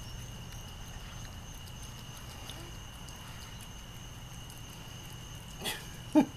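Cat eating wet food from a plastic container: faint, scattered chewing and licking clicks over a steady background hiss with a thin, steady high tone. Near the end, two short pitched vocal sounds.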